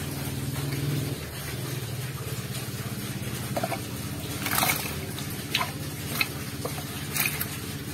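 Several short splashes of water in a plastic basin as fish are handled in it, over a steady low hum.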